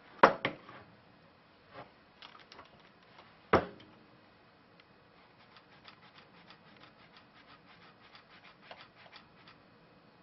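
Small metal parts and hand tools being handled on a workbench. There are a few sharp knocks just after the start and another about three and a half seconds in, then a run of light clicks and taps.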